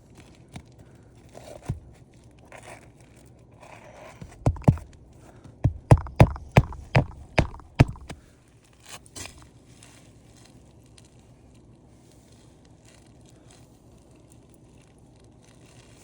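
A quick run of sharp knocks, about nine in all, bunched into roughly three seconds midway, with lighter rustling and handling noises before and after.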